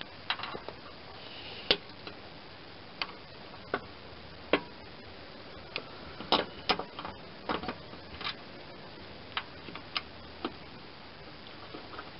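Scattered sharp metallic clicks and knocks, some in quick pairs, as a new blade spindle and its mounting bolts are handled and fitted into the mower deck shell.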